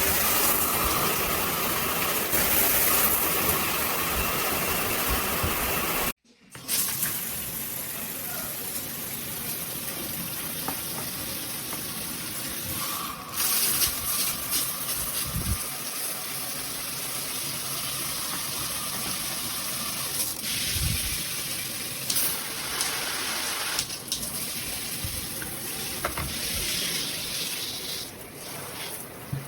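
Water spraying steadily from a shower head and splashing down, cut off abruptly about six seconds in, then running on more quietly.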